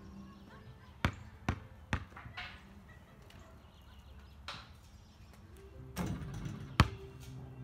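A basketball is bounced on an asphalt driveway three times, about half a second apart. Near the end the shot strikes the hoop with one loud bang.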